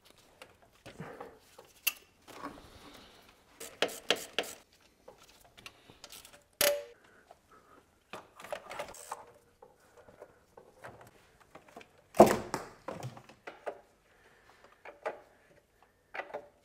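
Scattered metallic clicks, clinks and knocks as an alternator is fitted into a car engine bay by hand, with one brief ringing clink about midway and one louder knock about three-quarters of the way through.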